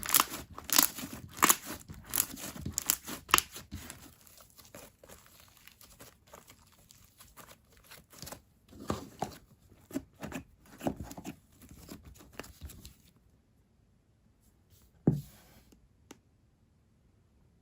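Stretchy, glossy slime being stretched and squished by hand, with dense sticky clicks and bubble pops for the first few seconds, then sparser pops. It goes quiet about 13 seconds in, with one last pop a couple of seconds later.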